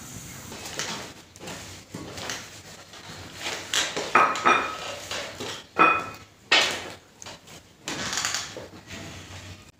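Metal pot lid clinking against a wok a few times, two of the knocks ringing briefly, between softer knocks and rustles.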